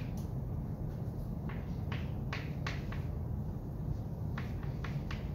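Chalk writing on a chalkboard: a string of short, irregular taps and scrapes as each stroke of the chalk meets the board, over a steady low room hum.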